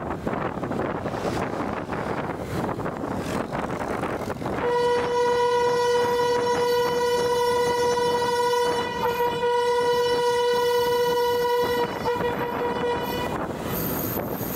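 Passenger train's horn sounding one long steady blast, starting about a third of the way in and fading near the end, over wind on the microphone and the train's running noise. The blast is the warning sounded on the approach to a level crossing.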